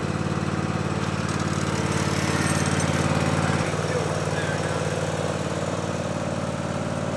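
Zero-turn lawn mower engine running steadily, its note changing slightly about halfway through.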